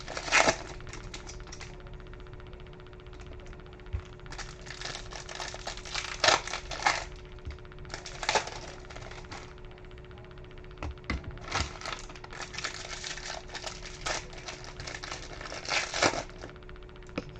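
Foil wrappers of trading-card packs crinkling and tearing open in several irregular bursts, with cards handled between them, over a faint steady hum.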